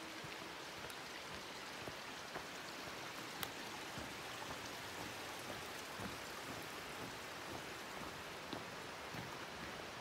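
Steady, faint rushing of flowing creek water, with scattered light ticks of footsteps on the trail and footbridge.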